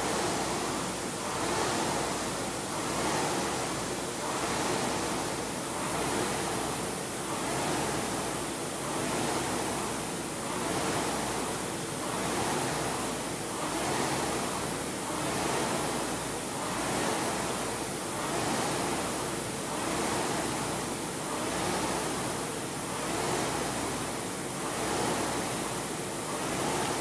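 Concept2 indoor rower's air flywheel rushing, swelling with each drive and fading on each recovery, about once every 1.8 seconds, at a hard race-pace stroke rate.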